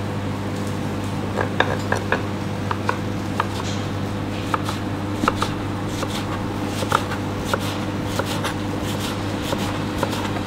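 Chef's knife dicing eggplant strips on a plastic cutting board: a run of irregular knife taps against the board, starting about a second and a half in, over a steady low hum.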